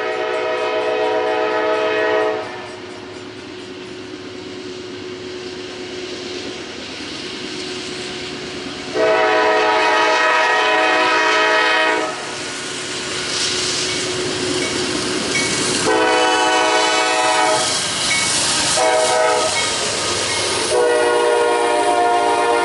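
Diesel locomotive's multi-tone air horn sounding long, long, short, long, the grade-crossing signal, as the train approaches. Wheel and rail noise grows louder between the blasts.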